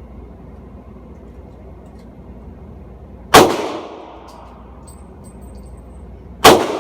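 Two AR-15 rifle shots about three seconds apart, each a sharp crack with a short fading echo.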